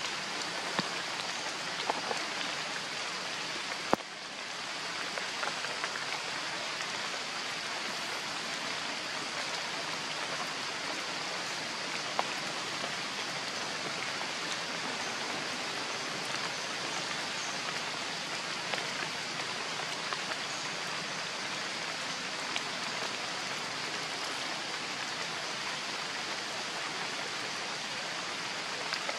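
Steady rain falling on leaves and paving: an even hiss with a few faint ticks scattered through it.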